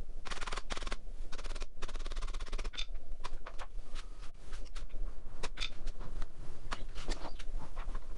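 Rapid runs of sharp metallic clicks and knocks as a motorcycle fork leg is worked into its yokes.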